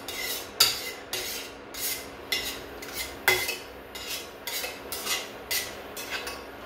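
Metal utensil stirring in a bowl, clinking and scraping against its side in uneven strokes about twice a second.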